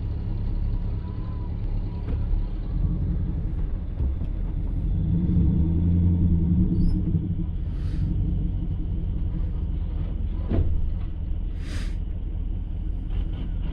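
Half-ton pickup truck engine running with a low rumble, getting louder about five seconds in and easing off again, with a couple of short hisses near the end.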